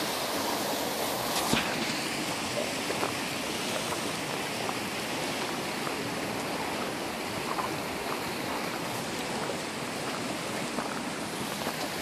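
Fast-flowing creek water rushing steadily over rapids, with a brief knock about a second and a half in.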